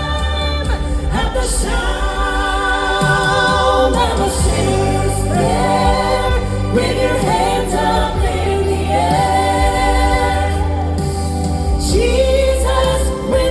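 Southern gospel vocal group singing held harmony notes with vibrato over instrumental accompaniment with a steady bass.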